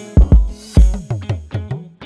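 Background music with a steady drum beat and heavy kick drum.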